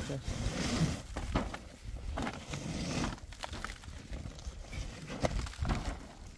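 Irregular knocks and clicks over rustling.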